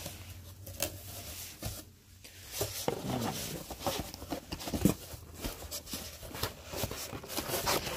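Cardboard shipping box being opened by hand and paperboard gift boxes slid and lifted out of it: irregular rustling, scraping and tapping, with a sharper knock about five seconds in.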